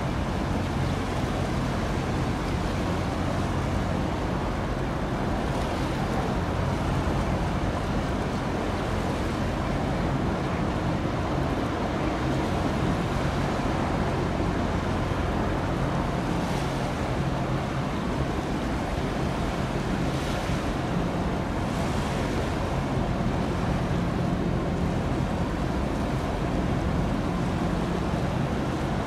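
Steady low hum of the passing container ship Quezon Bridge's engine, over an even wash of water and wind noise.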